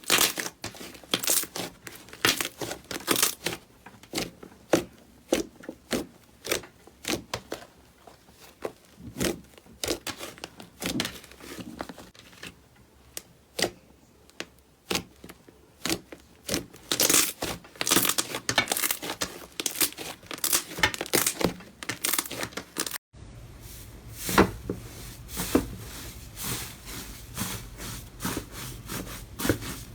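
Slime being squeezed and poked by hand close to the microphone, giving rapid sharp crackling pops. About three quarters of the way through, the sound cuts abruptly to a steadier, softer squishing.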